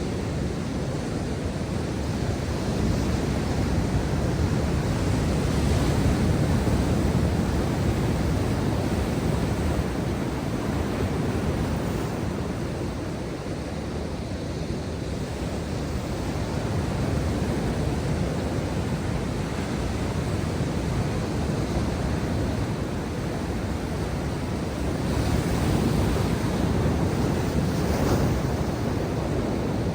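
Ocean surf: waves breaking and washing up the shore in a steady rush, swelling louder about every ten seconds as each set comes in.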